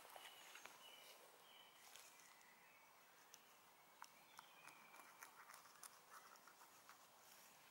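Very quiet forest ambience with faint short bird chirps, and from about four seconds in a run of small clicks and crackles from a gloved hand gripping a mushroom in the forest-floor litter.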